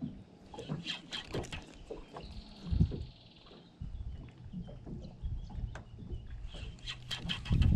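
Light knocks and clicks of fishing gear handled in a small boat, over a low steady hum, with a heavier thump about three seconds in.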